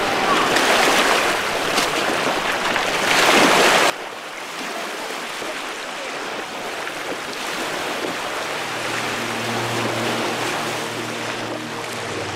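Shore ambience of small waves washing in the shallows. A loud rushing noise ends abruptly about four seconds in, leaving a quieter steady wash of water. Soft music with low held notes fades in after about eight seconds.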